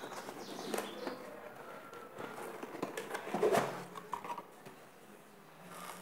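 A cardboard box being handled and its lid opened: scraping, rustling and light knocks of cardboard, loudest about three and a half seconds in.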